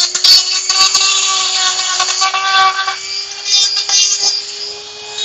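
Makita electric die grinder with a Kutzall carving burr running at a steady high whine while cutting into wood. A rough grinding noise swells and eases as the burr bites in and lifts off.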